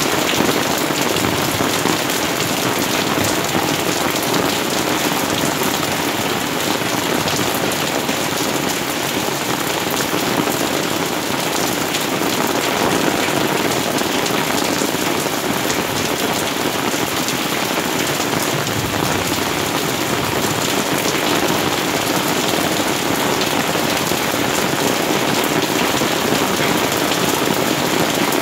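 Rain falling steadily on garden foliage and stone paving, an even dense hiss of drops without a break.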